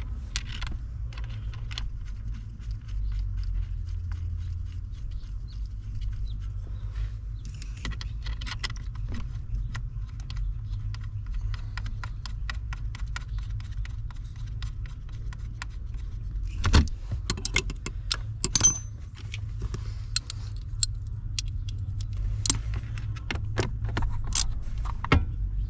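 Metal hand tools and bolts clinking and clicking while steering-column bolts are put back in, with scattered light ticks and a few sharper metallic knocks, one of them ringing briefly. A steady low hum runs underneath.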